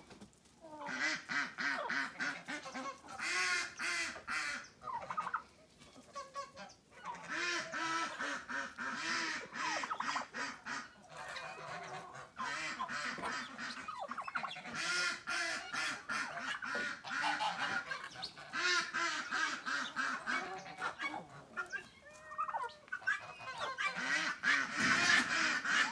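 A flock of farm poultry calling loudly, many birds at once, with overlapping calls and only brief lulls.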